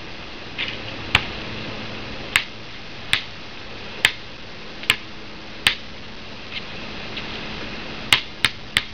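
Basketball bouncing on a hard court: six sharp single bounces a little under a second apart, then three quicker ones near the end.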